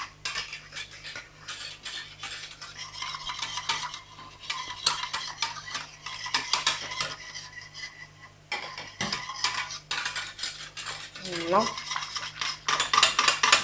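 Metal wire whisk stirring chocolate into a hot pastry-cream mixture in a stainless steel saucepan: the wires scrape and clink rapidly against the pan. There is a short pause a little past the middle.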